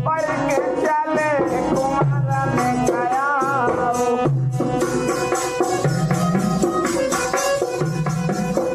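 Indian folk music: a wavering melody line over percussion that keeps a steady, repeating beat.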